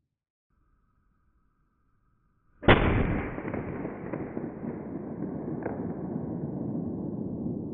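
A single gunshot about two and a half seconds in, breaking near silence and a faint steady high tone, followed by a long drawn-out rumble whose upper edge slowly falls, with a faint click about three seconds after the shot.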